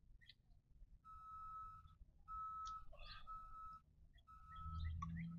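Four high, steady whistled notes, each under a second long, followed by a few short rising chirps near the end.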